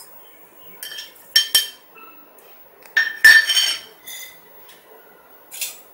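Metal spoon clinking against a metal kadai as mustard seeds are tipped in for tempering: about seven ringing metallic taps, the loudest a little after three seconds in.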